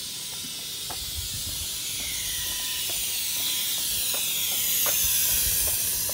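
Heritage S set double-deck electric train departing, a rising hiss as the carriages move past that peaks about five seconds in and then eases, with a few scattered short clicks.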